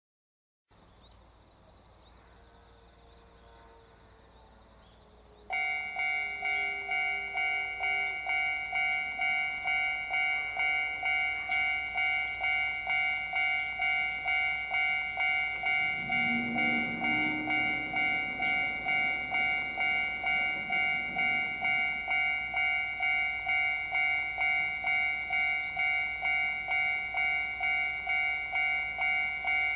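Japanese railway level-crossing alarm switching on suddenly about five seconds in, then ringing its electronic bell steadily at about two strikes a second, the warning that a train is approaching the crossing.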